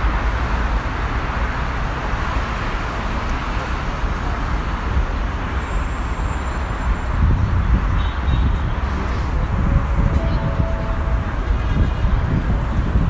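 City street traffic: a steady wash of passing vehicles, with a heavier low rumble from about seven seconds in.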